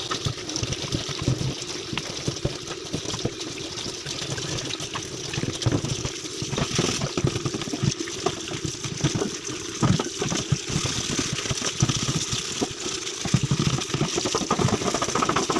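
Water from a tap running and splashing unevenly, with irregular sloshes.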